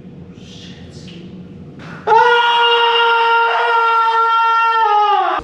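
A man's loud, sustained scream starting about two seconds in, held on one high pitch for about three seconds, then dropping in pitch just before it cuts off.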